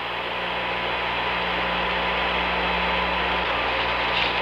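Steady radio static hiss on the Apollo 11 air-to-ground voice channel, an open channel with no one talking, with a low steady hum and a faint high tone underneath.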